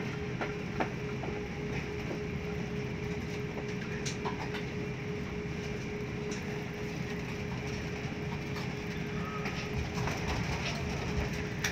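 Airbus A350 cabin noise while taxiing: a steady low rumble with a constant hum, broken by occasional light clicks and rattles.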